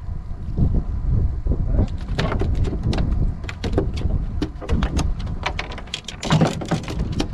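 Wind buffeting the microphone, and from about two seconds in a quick run of sharp splashes and slaps from a hooked fish thrashing as it is brought to the boat and landed on the deck.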